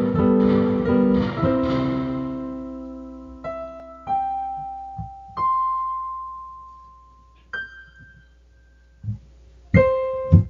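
Keyboard intro jingle for a news program: a few quick repeated chords, then a held chord and single notes stepping upward, each ringing out and fading, and one last chord near the end.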